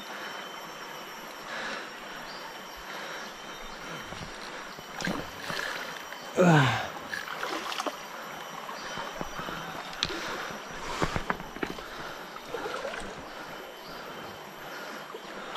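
Brown river water rushing steadily, with scattered clicks and knocks. About six seconds in there is one short, loud sound that falls sharply in pitch.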